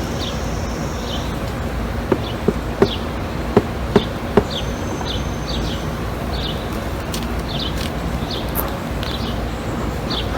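Honeybees buzzing at an open hive. A handful of sharp clicks or knocks come between about two and four and a half seconds in, and a small bird chirps repeatedly in the background.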